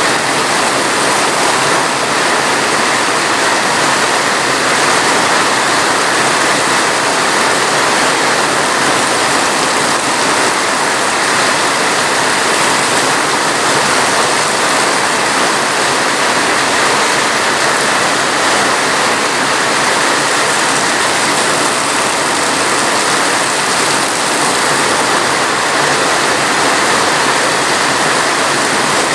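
Steady heavy rain, a dense even hiss with no single drops or thunder standing out.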